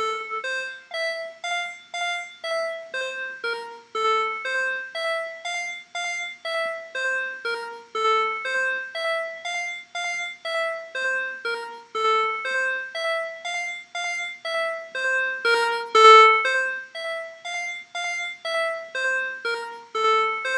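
A synthesized keyboard riff looping on playback: a short descending figure of plucked-sounding notes, about two a second, repeating every few seconds. It carries reverb and an echo (delay) effect, and the echo's time and feedback are being adjusted while it plays.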